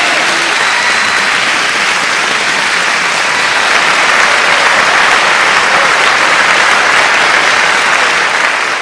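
A crowd applauding steadily, the dense clapping swelling slightly about four seconds in.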